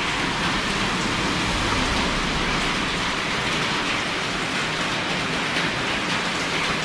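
Steady, even rain-like hiss with no distinct knocks or tones.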